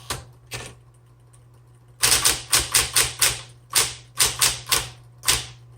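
Smith Corona Electra 120 electric typewriter typing: two key strikes, then after a short pause a quick run of sharp type-bar strikes, about four a second, over the steady hum of its running motor.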